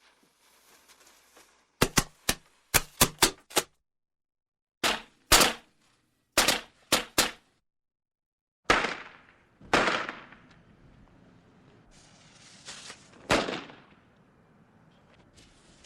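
A series of firecrackers going off: sharp bangs in quick irregular clusters, then a few single bangs that echo.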